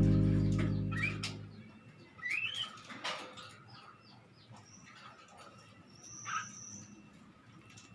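Background music fading out over the first second and a half, then scattered short bird chirps, a few sharp clicks, and one brief high whistle about six seconds in.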